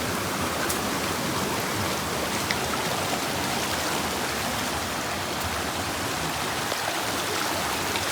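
River water rushing steadily over rocks, an even hiss.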